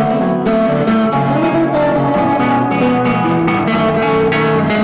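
Live instrumental guitar music led by an acoustic guitar, with plucked notes following quickly one after another over lower sustained notes.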